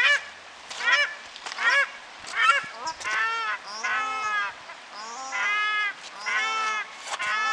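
Paradise shelducks calling. A run of short, sharp rising calls comes about once a second, then from about three seconds in the calls become longer and drawn out, repeating with short gaps.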